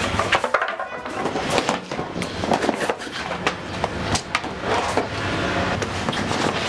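Irregular knocks, clatters and rustling as framed photographs and belongings are handled and moved about.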